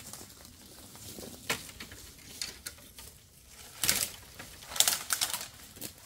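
Branches and brush being handled for firewood, with scattered sharp cracks and clicks of wood. The loudest are a cluster about four to five seconds in.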